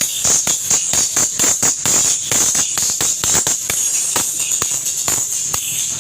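Music played back through a Kevler sound system (MC2, TX600 and TX200 units) during a sound check, with fast, steady percussion hits and a bright, hissy top end.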